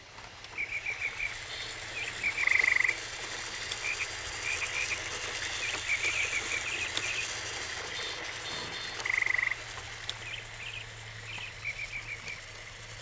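A chorus of high, chirping animal calls: quick runs of short repeated notes, broken twice by a louder buzzing trill about half a second long.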